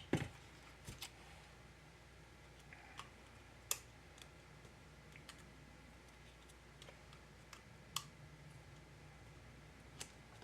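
Scattered light clicks and taps of small laptop parts being handled and fitted while a MacBook Pro's hinge covers go back on. There are a few at a time, some seconds apart, with the sharpest about four seconds in and about eight seconds in.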